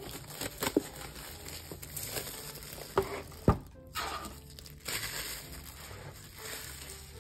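Clear plastic shrink wrap being peeled off a cardboard box and crumpled in the hand, crinkling and crackling. About three seconds in come two sharp knocks half a second apart as the box is set down on the table.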